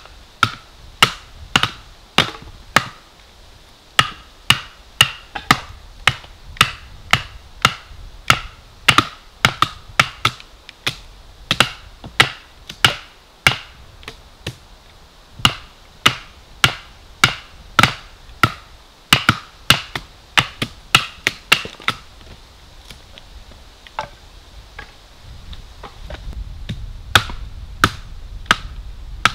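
Wooden batons striking the backs of knife blades to split firewood (batoning): repeated sharp knocks, roughly two a second, from two people working at once. The knocks thin out after about twenty seconds, and a low rumble rises near the end.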